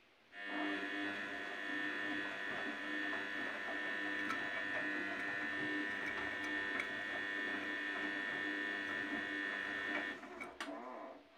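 Samsung Diamond front-loading washing machine's drum motor spinning the wet load at speed: a steady whine of several tones that starts abruptly about half a second in and winds down near the end.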